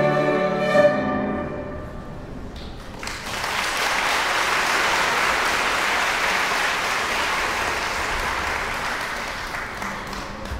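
An erhu ensemble's final held note dies away over the first two seconds. About a second later an audience breaks into steady applause, which thins out near the end.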